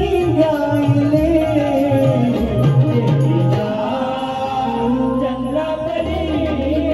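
Marathi shakti-tura folk song: a man singing a gan with a wavering melody over drum accompaniment.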